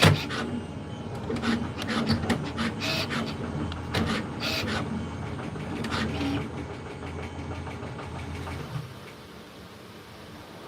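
3D printer at work: its motors whir in short moves with a string of sharp clicks and clunks. A low steady hum stops about nine seconds in.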